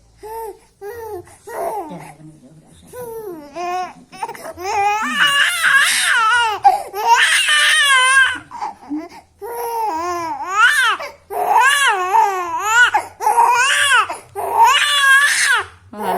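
Baby crying: short, quieter whimpers for the first few seconds, then a string of loud, high-pitched wails, each about a second long, following one after another.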